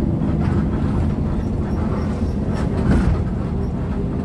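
Intercity bus in motion, heard from the driver's cab: a steady low engine and road rumble, with a brief louder swell about three seconds in.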